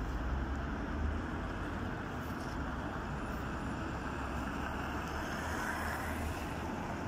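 Steady rumble and road noise of a moving car.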